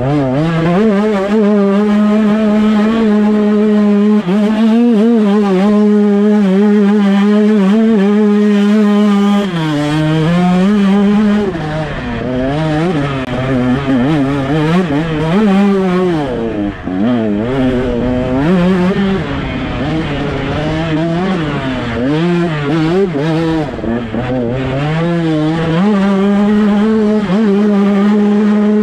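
Two-stroke motocross bike engine heard from on board, running hard at high revs with a steady pitch. Through the middle stretch the revs drop and swing up and down repeatedly as the throttle is rolled off and opened again, then it holds high revs once more near the end.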